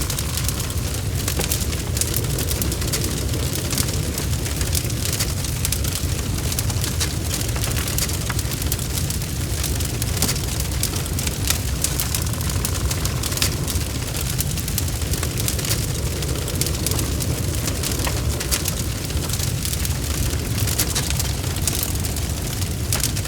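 Wood fire in a fireplace crackling: many small, sharp pops scattered irregularly over a steady low rumble.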